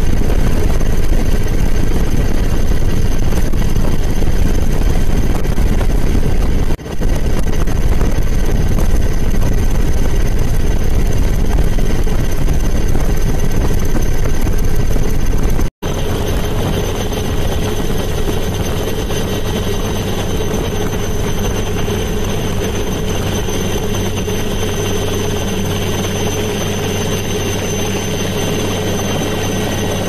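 Helicopter engine and rotor noise heard from aboard the aircraft: a loud, steady drone with a constant whine over a low rumble. It dips briefly about seven seconds in and cuts out for an instant about sixteen seconds in.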